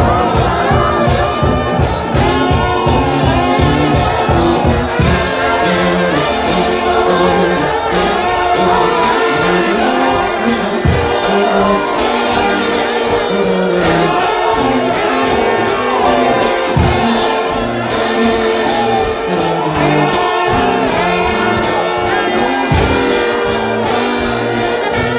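Gospel shout-band music: a trombone-led brass band playing a lively tune over a steady drum beat.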